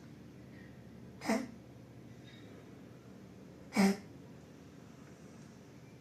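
A pug coughing twice, two short coughs about two and a half seconds apart: the cough of kennel cough.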